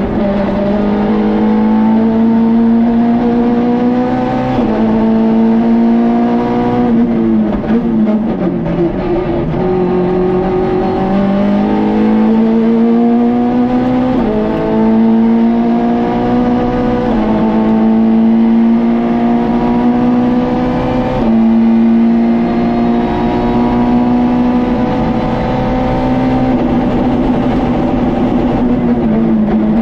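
Peugeot 106 rally car's four-cylinder engine heard from inside the cabin, pulling hard at full throttle. Its pitch climbs and then drops sharply at each upshift, every two to three seconds. Around eight seconds in it dips as the driver lifts off, and from about two-thirds of the way through it holds high revs.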